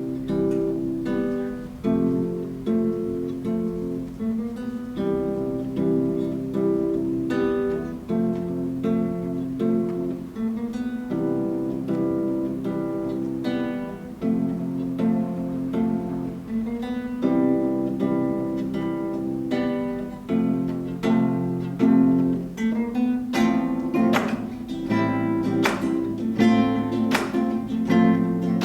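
Acoustic guitar playing a repeating sequence of chords, the chord changing every few seconds. The strumming grows sharper and more accented in the last few seconds. There is no singing.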